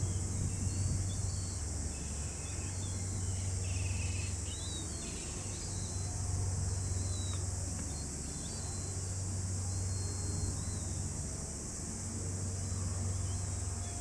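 Outdoor ambience: a steady high-pitched insect chorus throughout, with scattered short bird chirps and a low steady hum underneath.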